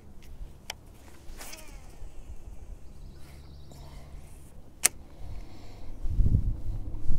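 Faint steady electric hum, likely from the kayak's bow-mounted Minn Kota trolling motor, with a few sharp clicks from handling the baitcasting reel and line; a sharp click comes about five seconds in. A loud low rumble rises near the end.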